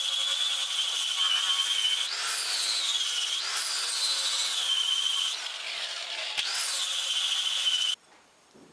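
An electric grinder grinding steel, with a steady high whine and a hiss of grinding. The motor's pitch rises and sinks back three times as the pressure on the work changes. The grinding stops abruptly near the end.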